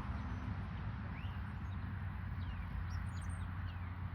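A few short, faint bird chirps over a steady low outdoor rumble.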